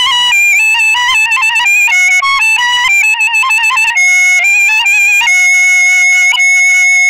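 Kaval, the end-blown shepherd's flute, playing a single-line melody of quick stepped notes with trills and ornaments, then settling on one long held lower note about five seconds in.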